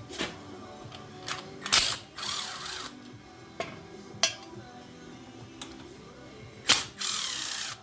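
Hand tools working on a mini ATV during teardown: sharp metal knocks and clinks every second or so, with two short spells of ratchet wrench clicking, about two seconds in and again near the end.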